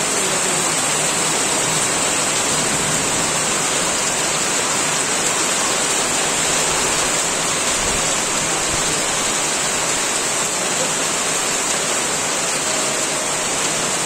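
Heavy downpour of rain: a dense, steady hiss that does not let up.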